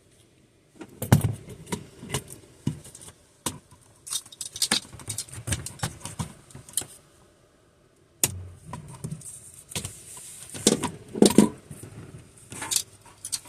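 Irregular metallic clinks, rattles and knocks from hand tools and seatbelt buckle hardware being handled, with a short pause a little past halfway.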